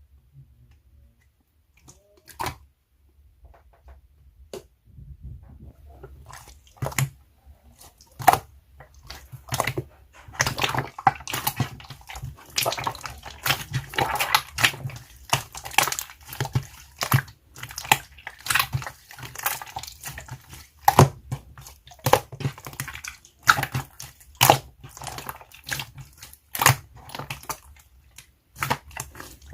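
Slime being squished and pressed by hand: wet squelching with sharp popping clicks. Only a few isolated pops in the first few seconds, then rapid popping and crackling for the rest.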